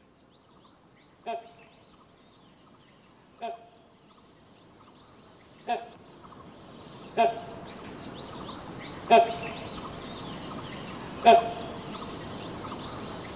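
Great hornbill giving six short, loud calls about two seconds apart, each louder than the one before as the sound fades in. Behind them runs a dense, continuous high chirping chorus.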